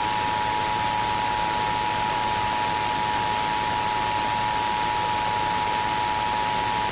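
Emergency Alert System two-tone attention signal (853 Hz and 960 Hz sounded together) held steady over radio static, cutting off abruptly near the end. It announces the alert, here a required monthly test.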